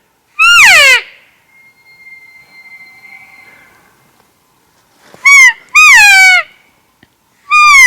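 Elk cow calls: four short, loud mews, each sliding down in pitch, the middle two close together. Between the first and second, a faint, steady high whistle is held for about two seconds.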